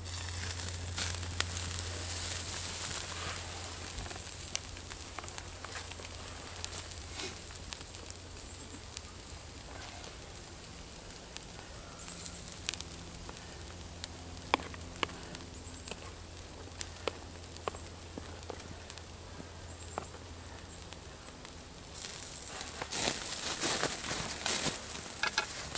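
Wood campfire crackling with scattered sharp pops while a steak grills on a wire rack over it. Near the end, footsteps rustle through dry leaves.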